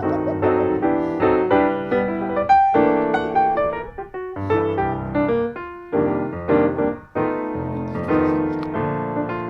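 Background piano music, notes and chords played in a flowing run.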